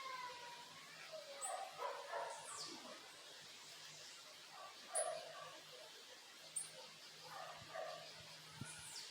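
Backyard birds calling. Short, high chirps sweep quickly downward every second or two among lower, fuller calls, all faint.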